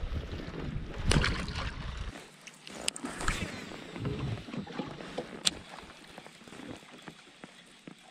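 Handling noises aboard a plastic fishing kayak: scattered clicks and knocks of rod, reel and gear, with a louder rustling knock about a second in. A low rumble of wind on the microphone stops about two seconds in.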